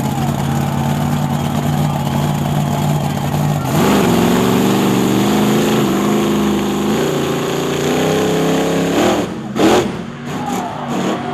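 Maximum Destruction monster truck's supercharged V8 running steadily, then revving hard a little under four seconds in as the truck pulls away, its pitch climbing in steps. A short, loud crunch near the end as the truck drives onto a crushed car.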